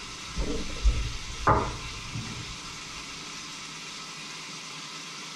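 A few thuds and two sharp knocks of cookware being handled at a stove, the loudest about a second and a half in, over a steady hiss.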